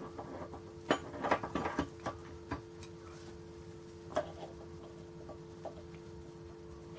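Light metallic clicks and knocks of motorcycle clutch parts being handled and fitted, the clutch basket going onto its keyed shaft: a quick cluster of knocks a second or two in, a couple of single knocks, then a few faint ticks, over a faint steady hum.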